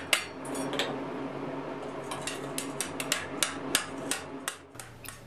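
Hand hammer striking a hot iron strap against the bowl of a forged ladle on the anvil: a steady series of sharp metallic blows, about three a second. The strap is being shaped tight around the bowl.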